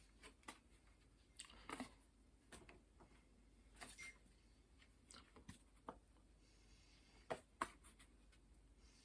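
Near silence, with faint scattered clicks and light knocks, the loudest two close together about seven and a half seconds in.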